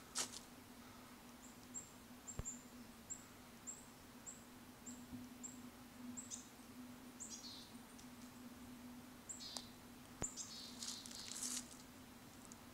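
Small birds calling faintly: a run of short, very high chirps about every half second for several seconds, then a few quick, high trilling calls later on.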